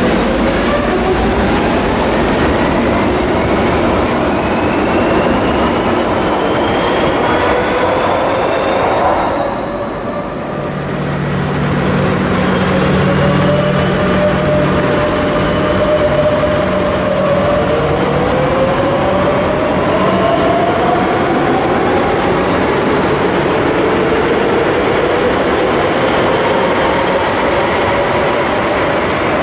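Madrid Metro electric trains pulling out of underground stations: the traction motors whine upward in pitch as they accelerate, over steady wheel-and-rail noise. About ten seconds in the sound breaks off and a second train starts its own rising whine as it leaves.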